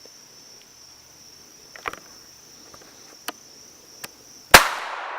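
A single unsuppressed shot from a Walther P22 .22 pistol firing CCI standard velocity ammunition: one sharp crack about four and a half seconds in, followed by a long, slowly fading echo.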